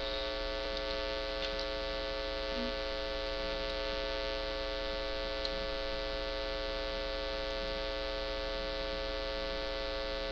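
Steady electrical hum with many overtones, unchanging throughout, with a few faint clicks.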